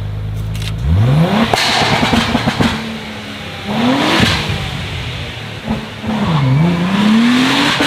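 Modified car exhaust: the engine idles steadily, then is revved sharply three times, the pitch climbing quickly each time, with crackles and pops between the revs.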